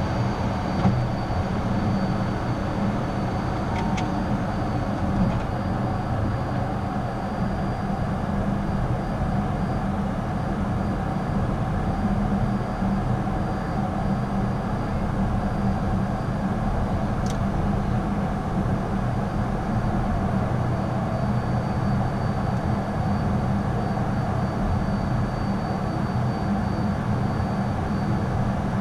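Steady cockpit noise of a Beechcraft Premier 1A business jet in the climb: rushing airflow over the hum of its twin turbofan engines, with a faint steady high whine. Two brief clicks, about four seconds in and a little past the middle.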